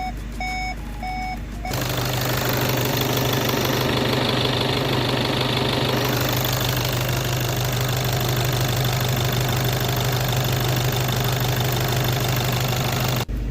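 EA288 2.0 TDI four-cylinder diesel engine idling steadily during warm-up, heard close in the engine bay with a strong low hum and hiss. A couple of short electronic beeps come just before it.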